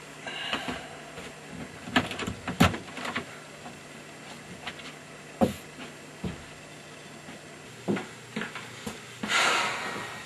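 A scattered series of short knocks and clicks over a low steady hum that stops about three-quarters of the way in, with a brief rushing hiss near the end.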